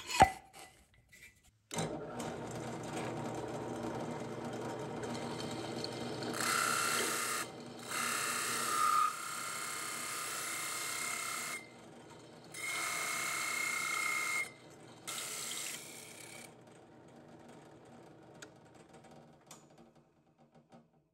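Drill press running a large hole saw through a wooden board: a steady motor hum starts about two seconds in, with four louder stretches as the saw bites into the wood, then dies away over the last few seconds.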